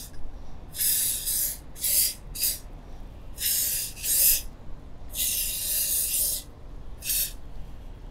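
Aerosol can of fogging oil hissing through its extension straw in about six short bursts, the longest about a second and a half, as it coats the cylinder bores before the pistons go in.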